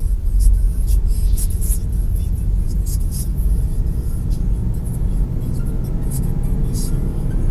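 Car accelerating from low speed, heard from inside the cabin: a steady low engine and road rumble with scattered light ticks.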